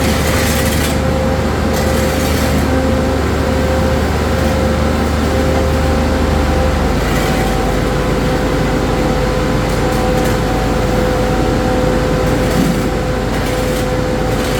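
A machine's motor running steadily with a constant whine over a low drone; the drone shifts lower about halfway through.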